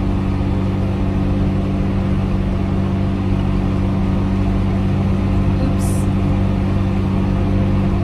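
Tractor engine running steadily under load while pulling a mower, a steady hum heard from inside the cab. A brief faint tick comes about six seconds in.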